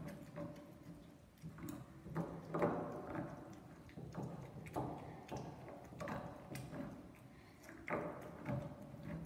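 Stone pestle in a molcajete, knocking and grinding as chiles are mashed into salsa, in uneven strokes about one or two a second.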